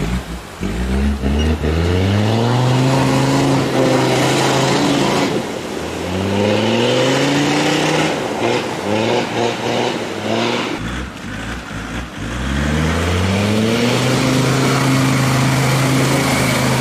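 Land Rover 4x4 engine revved hard three times while driving through deep mud, each time climbing quickly and then held at high revs, with the hiss of wheels churning mud over it.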